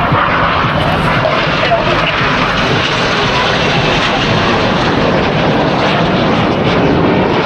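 Jet engines of two BAE Hawk T1 aerobatic jets passing fast at low level, a loud steady rush of jet noise.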